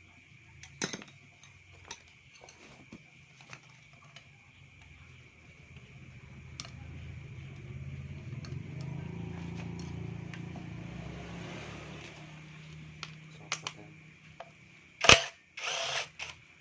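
Scattered clicks and light knocks of metal tools and engine parts being handled during a scooter engine teardown, over a steady high cricket chirr. A low hum swells and fades in the middle, and near the end comes a single loud knock followed by a short rattle.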